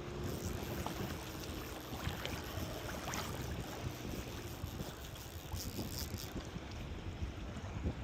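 Wind buffeting the microphone, with lake water lapping and small splashes and clicks.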